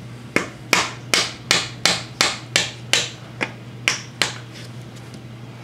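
A hammer strikes the end of a long, thin screwdriver used as a drift, driving the wrist pin out of the number 2 piston in a Subaru EJ25 boxer engine block. There are about eleven sharp blows, a little over two a second, and they stop about four seconds in.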